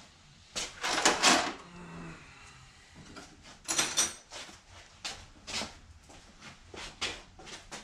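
A series of sharp clanks and knocks of tools and metal parts being handled, loudest as a cluster about a second in with a brief ring after it, then a sharp clatter near four seconds and lighter knocks.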